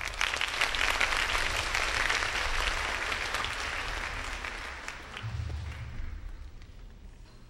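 Audience applauding, the clapping thinning and dying away over the last couple of seconds.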